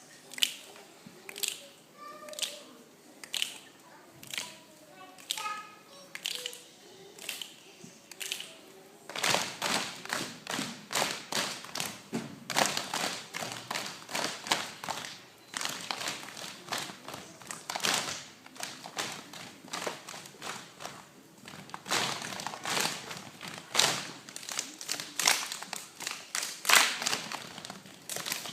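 A group of children performing body percussion, clapping and slapping in rhythm. The strokes are sparse for the first nine seconds or so, then come thick and louder.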